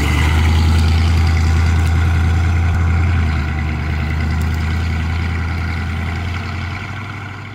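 Classic American car's engine running with a deep, steady rumble as the car drives away, slowly fading out near the end.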